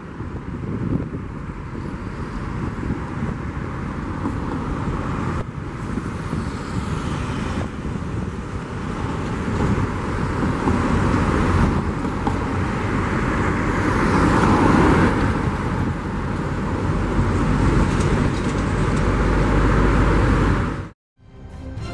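Jet noise from the twin Rolls-Royce Trent 7000 engines of an Airbus A330-900neo climbing out after takeoff: a steady, broad rumble that grows to its loudest about two thirds of the way through. It cuts off suddenly near the end, and music begins.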